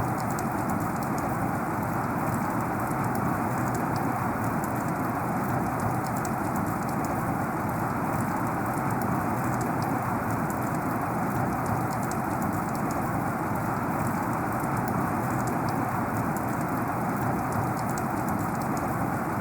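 Heavy rain falling steadily: a dense, even hiss of downpour with scattered fine drop ticks and no let-up.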